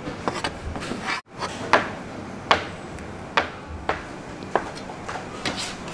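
Sharp knocks and taps on a hard work surface from hand work on youtiao dough, about one a second and unevenly spaced.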